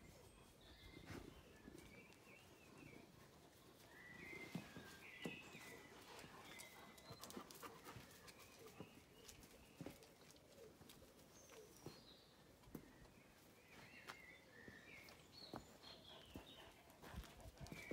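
Near silence outdoors, with faint, scattered bird chirps and a few soft knocks.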